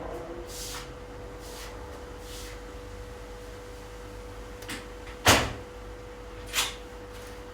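Household handling sounds: a few soft swishes, then a sharp knock a little past halfway and a smaller one about a second later, like a door or cupboard being shut, over a steady hum.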